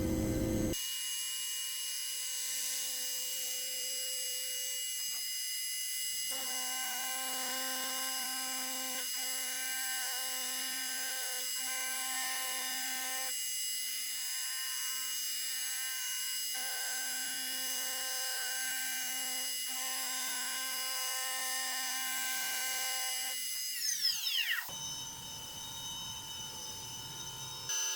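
Hobby CNC spindle whining steadily while milling aluminium, with the cutting sound swelling and easing about every second and a half as the tool makes its passes. A little before the end the spindle's whine falls in pitch as it spins down.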